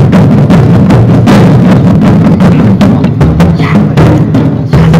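Taiko drums beaten in a fast, dense, loud rhythm.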